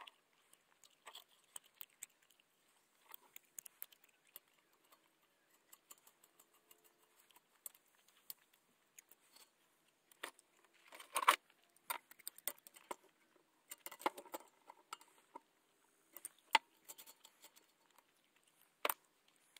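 Scattered light metallic clicks and taps as a brass hose fitting is worked into a gas burner's air shutter by hand, the loudest little clatter about eleven seconds in.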